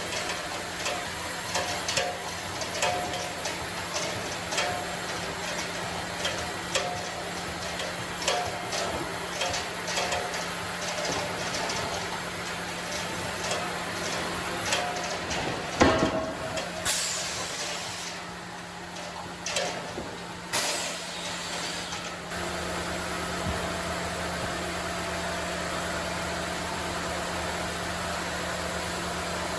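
Sawmill machinery running with a steady hum, under repeated knocks of timber being handled, about one or two a second. About halfway through comes one loud bang, and the last third is the machinery running on steadily without knocks.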